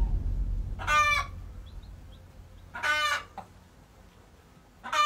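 A hen calling: three short, loud squawks, evenly spaced about two seconds apart.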